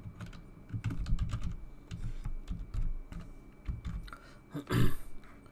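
Typing a password on a computer keyboard: a run of quick key clicks over the first four seconds, then one louder short sound near the end.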